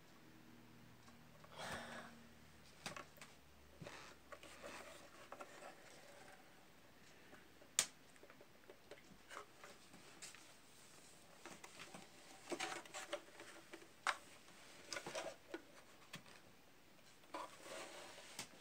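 Faint, scattered clicks and rustles of hands handling a screwdriver and the metal parts of an electric cake-baking appliance during repair work, with a sharper click a little before halfway and another about three-quarters through.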